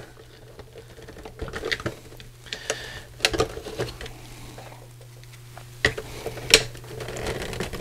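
Scattered hard-plastic clicks and taps as a tail fin is worked and pressed onto a plastic toy Batmobile's body, a few sharper knocks among them, over a low steady hum.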